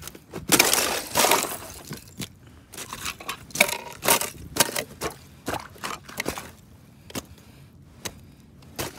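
Footsteps crunching and cracking over snow-crusted, jumbled lake ice in an irregular string of sharp steps. The steps are loudest about a second in and thin out near the end.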